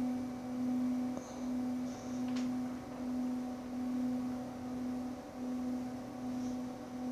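Background music: a sustained low drone that swells and fades about once a second, with fainter overtones above it.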